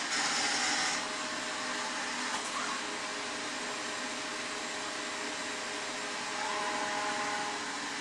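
Aiibot V9S robot vacuum cleaner running on a hard laminate floor: a steady whir of its suction fan and spinning brushes, with a faint whine. It is a little louder and hissier for about the first second.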